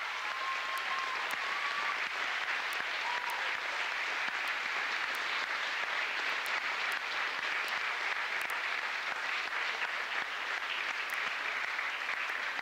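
Audience applauding, steady dense clapping that keeps up without a break.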